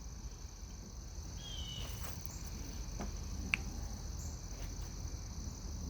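Crickets trilling steadily in the background over a low hum, with a few faint light clicks.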